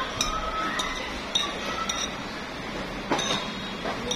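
Light clinking of tableware, glass and china struck briefly about every half second, with a heavier knock about three seconds in.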